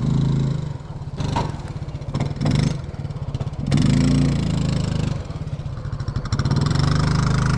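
Coleman UT400 UTV engine running at low speed with a steady pulsing note, the throttle opened up and eased off several times.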